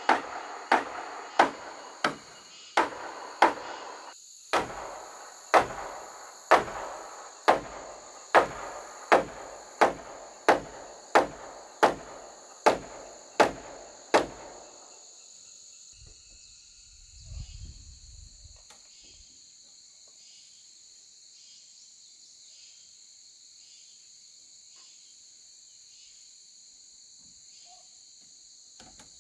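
Hammer blows on a timber roof-frame joint, about twenty strikes at a steady pace of roughly one every 0.7 seconds, each ringing briefly through the wood, stopping about fourteen seconds in. After that a steady high chorus of insects is left, with one soft low thump a few seconds later.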